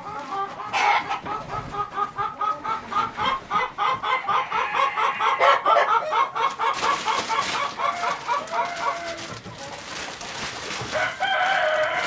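Chickens clucking in a rapid run of short calls, about five a second, then a rooster starts crowing near the end with a long call that falls in pitch.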